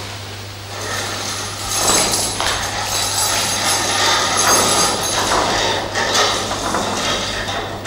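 Rustling of a curtain of ribbon streamers being gathered and hoisted up, over a steady low hum.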